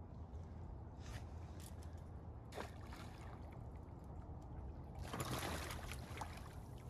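Faint lapping of lake water at the shore over a low rumble, with a few soft ticks and a brief swell of hiss about five seconds in.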